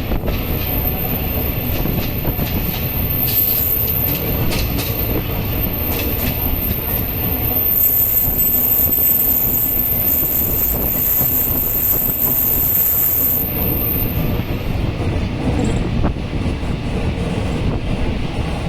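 Train running on the track, with a steady rumble and the clicks of wheels over rail joints. A high, steady wheel squeal sets in about eight seconds in and lasts some five seconds.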